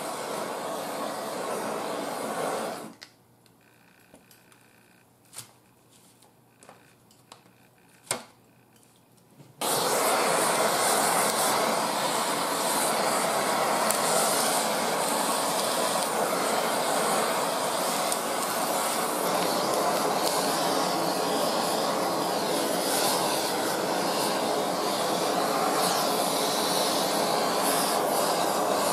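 Kitchen blowtorch flame running steadily as it sears sauce-brushed grilled eel. It cuts out about three seconds in, leaving a few faint clicks, and starts again about ten seconds in.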